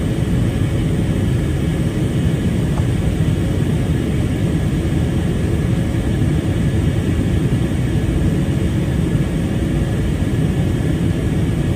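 Steady cabin noise of an Airbus A321neo climbing out: the low, even rumble of its Pratt & Whitney PW1100G geared turbofans and rushing air, heard from inside the cabin, with faint steady tones above it.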